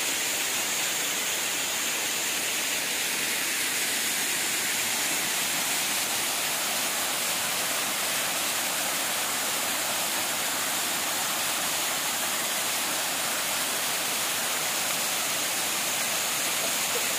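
Small waterfall spilling in thin streams down a rock face: a steady hiss of falling and splashing water, mostly high with little low rumble.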